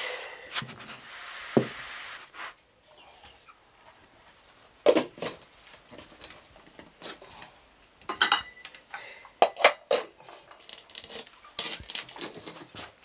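Wooden paddle scraping and knocking inside a metal pot of stiff nshima (maize porridge) as it is stirred and shaped, then scattered knocks and clinks of metal pots and lids being handled.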